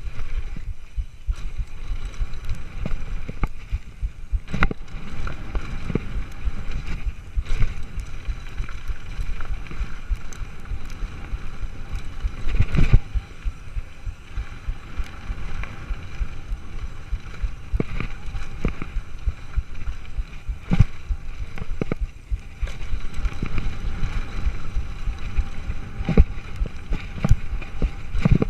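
Mountain bike ridden fast down a dirt and gravel trail: a steady rumble of wind on the microphone and tyres on the ground, with frequent sharp knocks and rattles from the bike over bumps, the loudest about halfway through.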